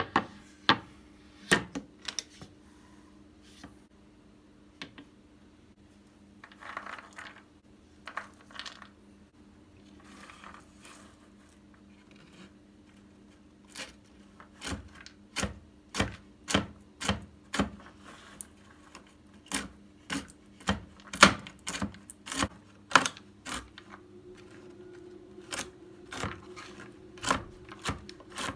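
Repeated sharp clicks and knocks, scattered at first and then about two a second from halfway through, over a steady low hum.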